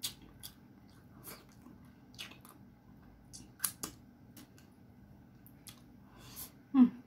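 A person eating close to the microphone: wet chewing and lip-smacking clicks at irregular intervals, with a sharper pair of smacks about three and a half seconds in. A short voiced hum with falling pitch comes near the end.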